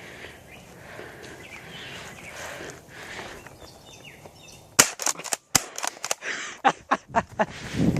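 Airsoft gun firing a string of about a dozen sharp shots over some three seconds, starting about halfway through, after low rustling.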